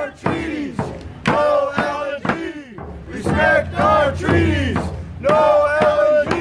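A group of marchers singing together in a chant-like song, with hand drums struck in a steady beat about twice a second.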